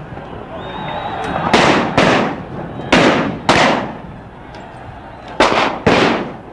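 Six sharp shots in three pairs, the shots in each pair about half a second apart, each fading out briefly, over steady street noise.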